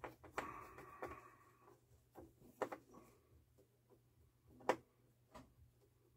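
Faint scattered clicks and taps of fingers and a screw being worked while the ground wire is removed from a turntable motor mount, with a brief scraping near the start and the sharpest click about three-quarters through. A steady low hum lies underneath.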